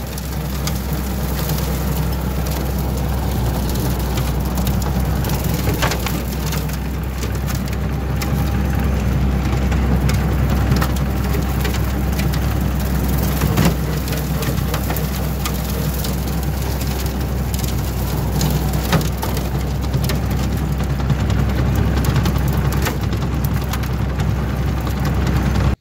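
Kioti DK45SE tractor's diesel engine running steadily under load while the rear-mounted bush hog rotary cutter shreds brush, a dense rushing hash over the engine's low hum. Occasional sharp cracks stand out.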